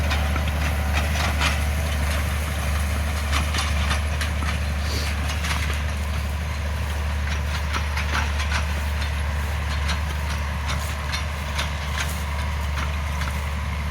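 Farm tractor engine running steadily in a low drone, with scattered clicks and knocks.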